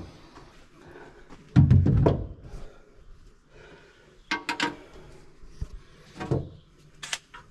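A few separate knocks and clunks of screws and parts being handled in hand work on the Jeep's wiring; the loudest, heaviest clunk comes about one and a half seconds in, with sharper clicks later.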